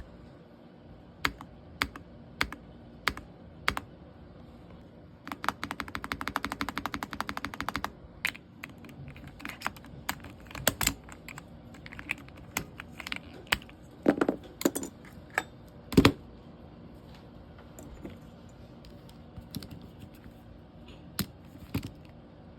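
Spacebar of a mechanical keyboard fitted with a Gateron switch, pressed repeatedly: five single clacks about half a second apart, then a fast burst of presses for a couple of seconds, then irregular presses with one louder clack near the middle.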